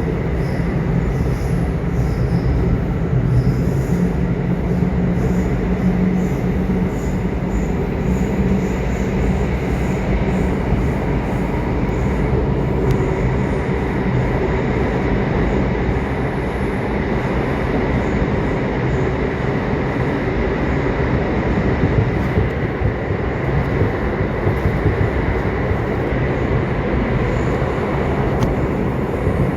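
Subway train running: a steady rumble of wheels on rails with a low hum and a thin, steady high whine.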